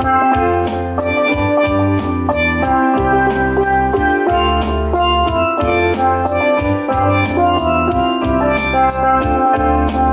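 Steel drum music: a melody of quick ringing pan notes over a bass line and a drum beat with steady, quick cymbal ticks.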